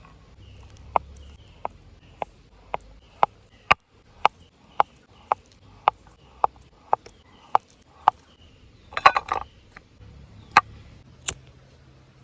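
A series of sharp taps or knocks, about two a second, with a quick flurry of knocks about nine seconds in and two more single knocks after it.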